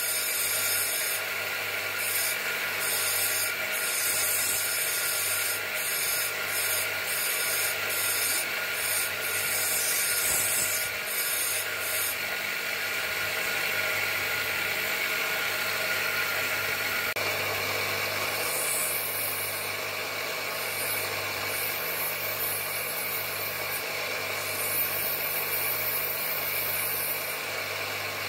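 Bench grinder running steadily while a small wet nagasui agate cabochon is held against its spinning wheel: a constant motor hum under the rubbing hiss of stone on the wheel as the cabochon is ground to shape.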